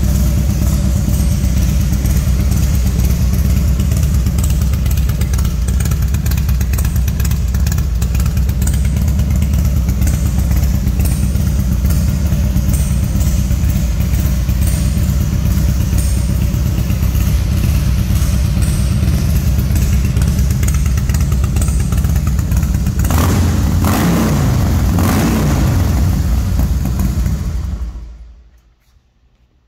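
2007 Harley-Davidson CVO Softail Springer's 110 cubic inch Screaming Eagle V-twin running steadily at idle through an aftermarket Rinehart exhaust. It is revved a few times a little past three quarters of the way in, then switched off near the end.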